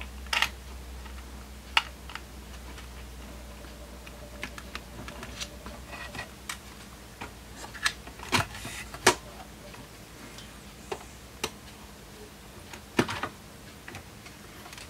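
Scattered sharp clicks and light knocks of a plastic front panel and its circuit board being handled and fitted back onto a bench power supply's chassis, with a faint low hum that fades out about halfway.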